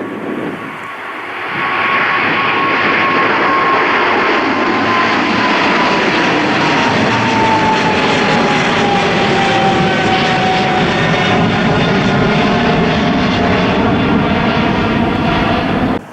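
Jet airliner passing close by: a loud engine roar with a high whine that slowly drops in pitch as it goes by, cutting off suddenly at the end.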